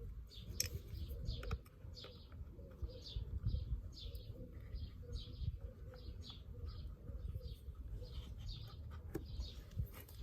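A bird chirping over and over, a short high note about twice a second, with a few light clicks and taps from hands working small plastic fuel pipes and a primer bulb.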